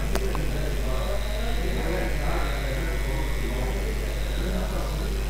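Steady low electrical hum and hiss of the recording's background, with a single sharp click just after the start.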